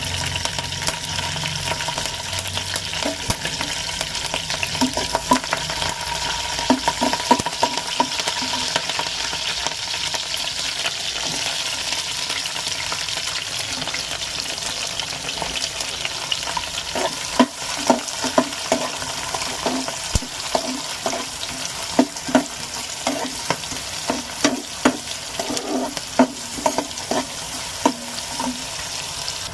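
A tempering of mustard seeds, curry leaves and green chillies sizzling steadily in hot oil while a spatula stirs it, scraping the pan in quick runs of ringing strokes, about 5 to 8 seconds in and again from about 17 seconds on.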